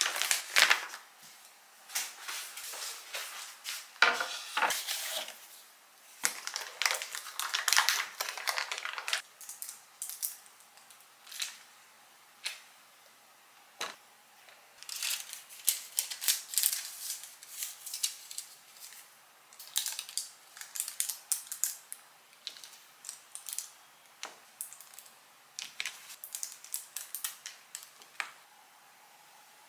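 Kitchen handling sounds: light clicks, taps and rustling scrapes from utensils, containers and packaging. They come thick for the first several seconds, then in scattered clusters with short quiet gaps.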